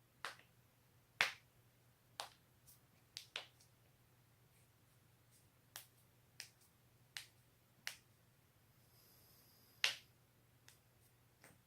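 Joints cracking: about a dozen sharp, separate pops at irregular intervals, the loudest about a second in and another near the end, over a faint low steady hum.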